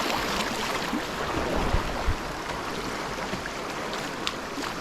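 Rushing white water of a river rapid around a kayak, a steady hiss with a few low knocks about two seconds in.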